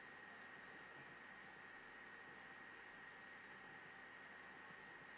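Faint rubbing of a hand wiping across the glass of an interactive display to erase it, a soft hiss in quick back-and-forth strokes of about three a second.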